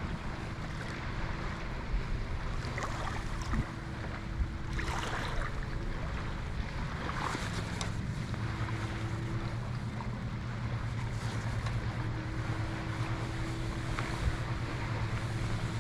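Wind buffeting the microphone over water moving around a kayak, with a few soft splashes and a faint low hum that grows stronger about halfway through.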